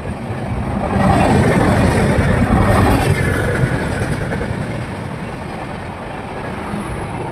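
Passenger coaches of an express train running through a station at speed without stopping: a steady rushing rumble and clatter of wheels on rail. The sound is loudest about a second in and slowly fades as the rest of the train goes by.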